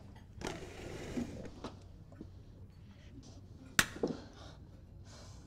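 Quiet room tone with a rustle of movement about half a second in, then one sharp click a little under four seconds in, followed by a couple of softer knocks.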